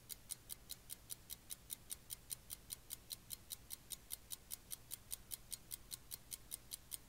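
Quiet, rapid, perfectly even ticking, roughly six sharp ticks a second, over a faint low hum.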